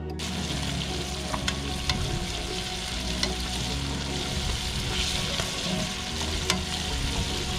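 Small trout frying in bubbling oil in a wok: a steady hissing sizzle, with a few sharp clicks as metal tongs turn the fish.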